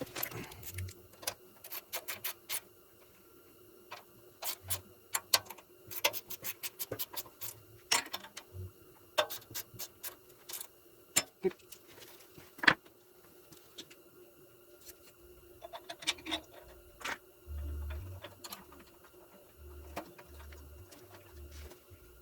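Irregular clicks and metallic taps of hand tools working on a small generator engine, some in quick runs, with a steady faint hum underneath.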